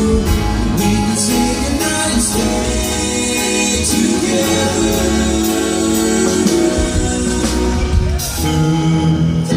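Live pop band playing with group vocal harmonies over guitar and a steady beat, ending on a held chord near the end.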